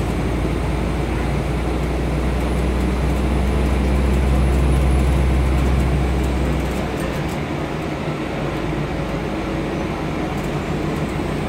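Scania N230UD double-decker bus heard from the upper deck while under way: a deep diesel engine rumble with road and body noise, the rumble building over the first half and then dropping away about two-thirds of the way through.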